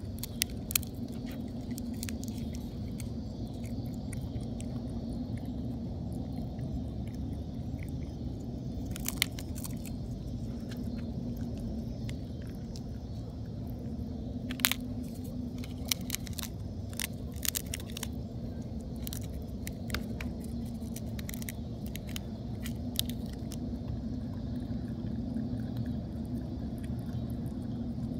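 A groundhog cracking and chewing peanuts in the shell: irregular sharp crunches and clicks scattered over a steady low rumble.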